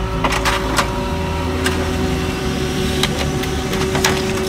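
HP LaserJet MFP laser printer running with a steady hum. It is overlaid by a series of sharp rustles and clicks of printed paper being handled.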